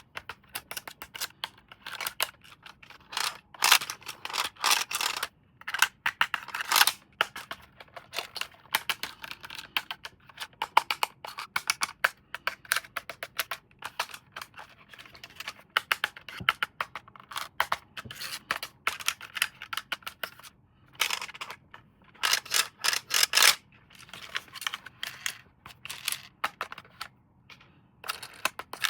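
Toy packaging being handled and opened: plastic and cardboard crinkling and rustling, with quick clicks and scrapes in irregular bursts and short pauses.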